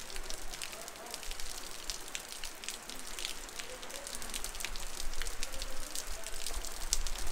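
Heavy rain pouring down on a street: a dense, steady patter with many sharp, close drop hits, growing louder about five seconds in.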